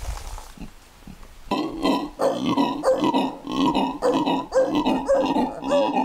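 Black howler monkey (Alouatta caraya) howling: after a few soft low grunts, about a second and a half in it breaks into a loud, rhythmic series of deep, throaty roaring grunts, about three a second.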